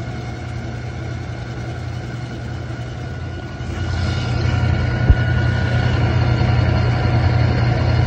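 Whirlpool top-load washer with an agitator running, a steady low mechanical hum that grows louder about three and a half seconds in, with a faint higher whine joining it and a single knock about five seconds in. The machine's rattling or grinding noise is, in the owner's guess, a failing pump.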